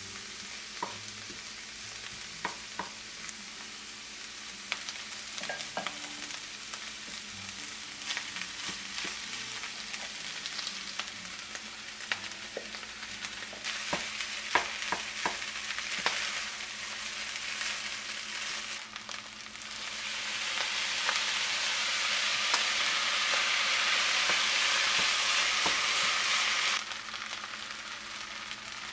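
Bok choy, then rice and salty pork, stir-frying in a nonstick frying pan: steady sizzling with a wooden spatula scraping and knocking against the pan. The sizzle grows louder about two-thirds of the way through and cuts off suddenly near the end.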